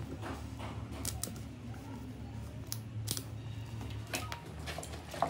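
Scattered light metal clicks and taps of a lead rod against a terminal mould as lead is melted onto a battery terminal post, with a sharper click near the end, over a steady low hum.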